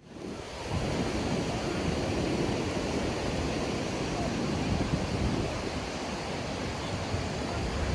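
Sea waves washing ashore on a beach as a steady rush that fades in over the first second, with wind buffeting the microphone.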